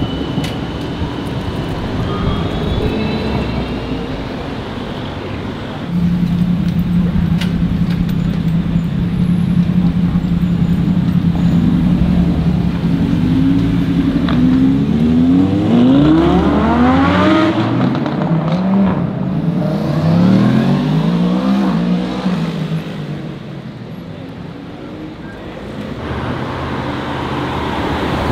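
Lamborghini Huracán's V10 engine running with a steady low drone, then revving up as it pulls away, its pitch rising three times and dropping back at each upshift before fading.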